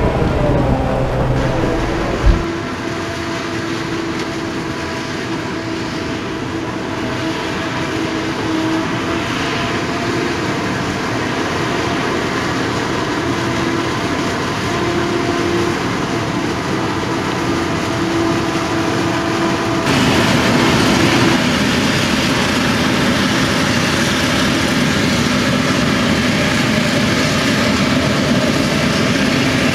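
Claas Jaguar 970 forage harvester and tractor running steadily while maize is chopped and blown into a silage trailer, with a steady engine hum under the noise. A sharp click about two seconds in, and an abrupt change in the sound about twenty seconds in, where the clips are cut.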